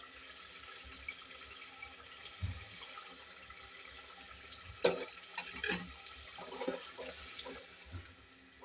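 Mutton masala sizzling faintly in a pot as yogurt is spooned in and stirred through with a spatula, with wet liquid sounds. A single sharp knock about five seconds in, then scattered stirring sounds.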